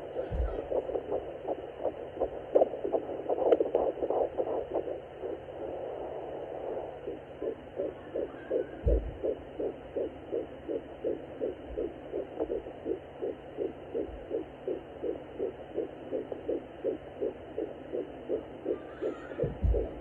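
Home fetal doppler picking up a baby's heartbeat at 10 weeks of pregnancy. For the first several seconds there are uneven whooshing pulses as the probe searches; then the heartbeat settles into rapid, even whooshing beats, close to three a second. A few dull thumps from the probe come through along the way.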